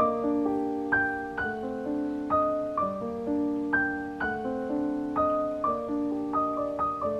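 Background piano music: a gentle melody of separate notes, each struck and left to fade, over soft chords.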